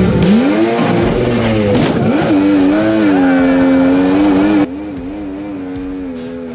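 Mini jet boat's engine running hard, its pitch dipping and climbing several times as the throttle changes, with water rushing under the aluminum hull. Past the middle the sound drops suddenly in level and turns duller.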